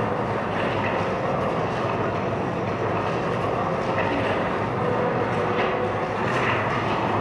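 Immersive media-art soundtrack over the hall's speakers: a steady, dense rumbling drone with soft swells of hiss every second or two.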